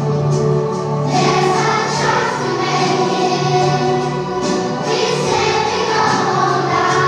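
A choral song with instrumental accompaniment: many voices singing together, with held notes.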